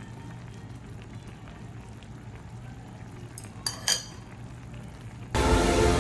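A steady low hum with a few light clinks about three and a half to four seconds in, then music starts abruptly and much louder near the end.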